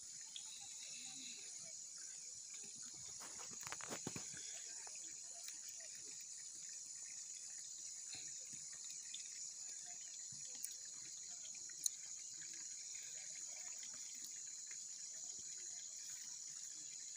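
Faint, steady high-pitched drone of insects chirring, with a few scattered faint ticks.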